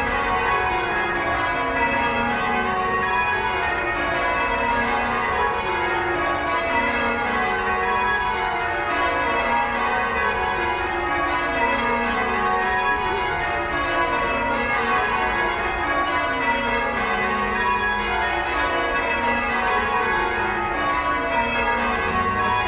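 Change ringing on the bells of Christ Church Cathedral, Dublin: the bells strike one after another from highest to lowest in rows that repeat about every two seconds, their tones overlapping as they ring on.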